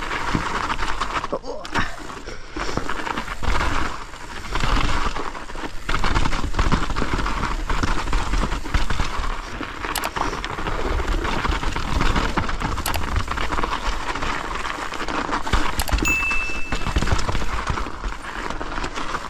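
Mountain bike ridden down a snowy singletrack: steady tyre and riding noise with frequent knocks and rattles as the bike goes over bumps. There is a brief high squeal about three quarters of the way through.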